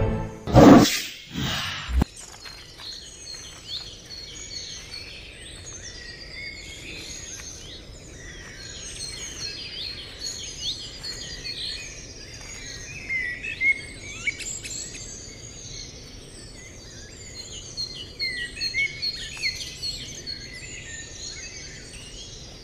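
Many small birds chirping and calling over a faint steady background hiss. A brief, loud sweeping sound comes in the first second or two.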